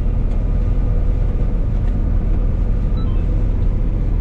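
Combine harvester running steadily while harvesting soybeans: a constant low drone of engine and threshing machinery, heard from inside the cab.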